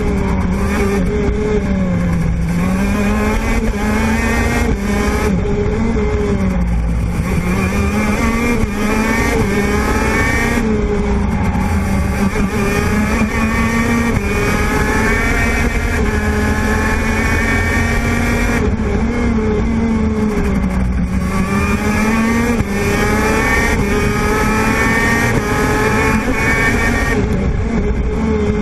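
TM 125cc two-stroke kart engine at racing speed, heard onboard: its high buzzing note climbs steadily as the kart accelerates along the straights and drops several times as it slows for the corners.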